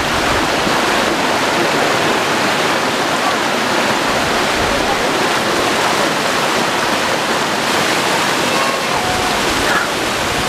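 Rushing water of a small mountain creek cascading over rocks into a pool, a steady loud hiss.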